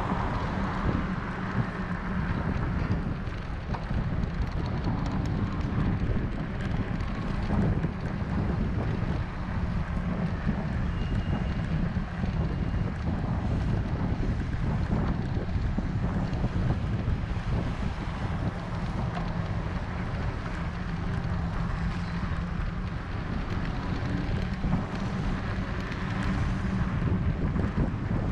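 Wind buffeting the microphone of a camera riding on a moving bicycle: a steady low rumble that does not let up.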